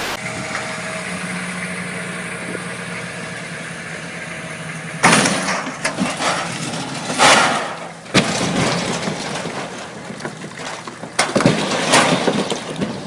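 A boat's engine running steadily with a low hum. From about five seconds in it is overtaken by a series of loud rushing surges of noise, several seconds apart.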